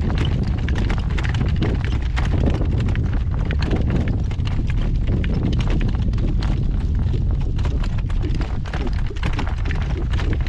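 Strong wind buffeting the microphone in a steady low rumble, over the irregular clatter of a driven horse's hooves and a cart jolting across rough, bumpy pasture ground.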